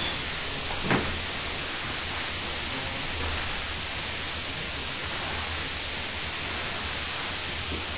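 Steady hiss and low hum of a low-quality recording, with one short knock about a second in.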